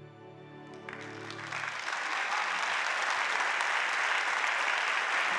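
Soft instrumental music fades out as a large audience starts applauding about a second in. The clapping swells within a second or so to steady, loud applause.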